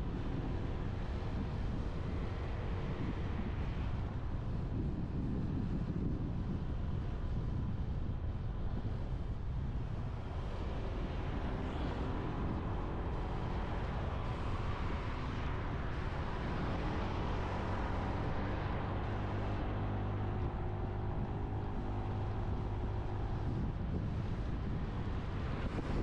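Motorbike engine running while riding along a road, with wind noise on the microphone.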